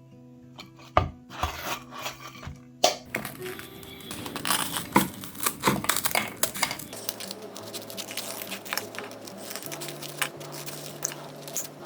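Crisp crackling and crunching of toasted, butter-crisped sliced bread buns being broken open, over background music with steady held notes.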